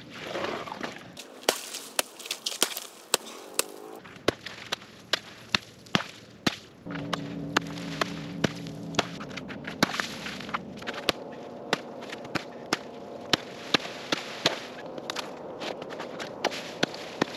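Hatchet chopping into lake ice: a long run of sharp, separate strikes, about two to three a second.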